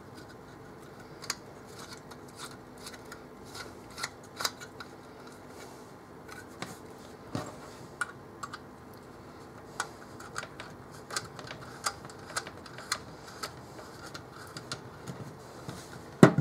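Small metallic clicks and ticks of coaxial connectors being handled and screwed onto an RF attenuator's sockets, scattered irregularly with a sharper click near the end, over a faint steady hum.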